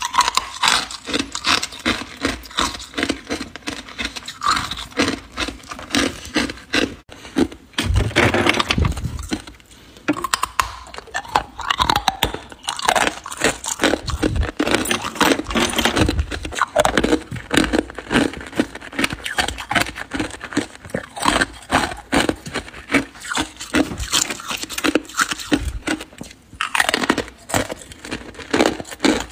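Hard ice being bitten and chewed close to the microphone: a dense, irregular run of sharp cracks and crunches, with heavier bursts now and then.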